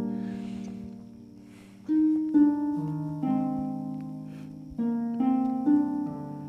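Soft, slow instrumental background music: chords that ring and fade away, with new chords coming in about two seconds in and again near the end.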